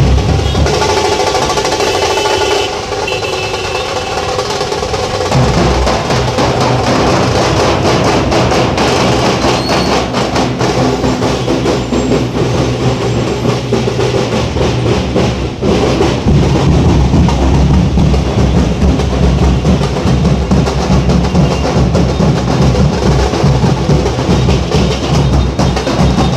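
Nashik dhol drumming: dhol drums beaten in a fast, continuous rhythm with drum rolls. The deep bass strokes grow louder and heavier about sixteen seconds in.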